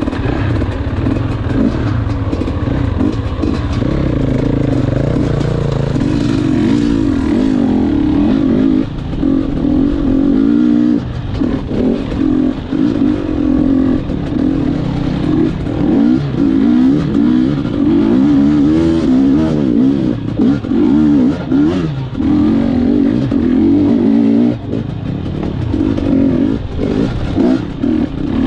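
Gas Gas EC 250 two-stroke enduro bike being ridden over rough ground. The engine revs rise and fall over and over as the throttle is opened and closed, with a few brief drops off the throttle.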